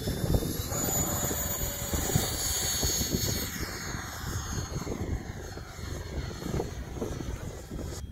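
Radio-controlled model airplane's motor and propeller running at takeoff power: a high whine that steps up in pitch about a second in, then slowly drops and fades as the plane climbs away. Wind buffets the microphone underneath.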